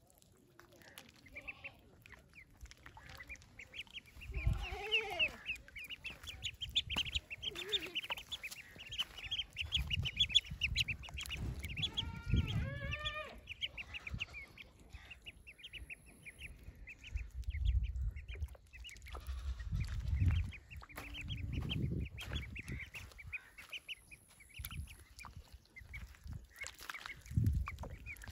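Ducklings peeping in fast runs of short, high chirps, with a few lower calls mixed in and some low rumbling noise at times.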